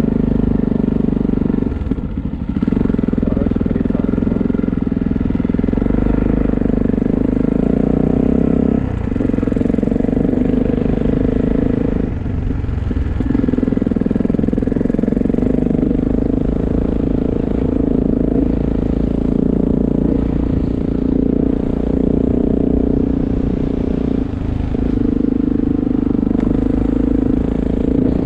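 A vehicle engine running steadily on the move, its note dropping off briefly four times.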